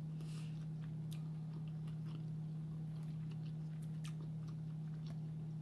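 A person chewing a crisp fried seafood egg roll close to the microphone, with scattered crackling crunches and mouth clicks. A steady low hum runs underneath.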